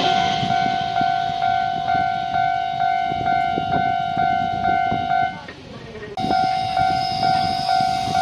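Railway level-crossing warning bell ringing steadily, an even electronic ding about twice a second. It cuts out for a moment about five and a half seconds in, then starts again at the same pace.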